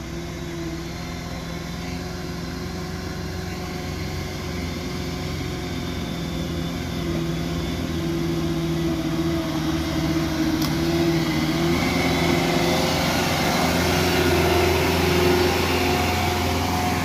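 Diesel engine of a Mitsubishi Canter Euro 4 light truck pulling uphill under an 11-tonne load, running steadily and growing louder as the truck draws near and passes close by.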